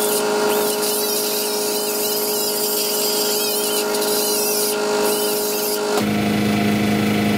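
Pneumatic right-angle die grinder running at a high steady whine, its small disc grinding the sheet metal of a chrome aftermarket fan shroud with wavering squeals as it trims the shroud for fit. The grinder stops about six seconds in, and a lower steady hum carries on after it.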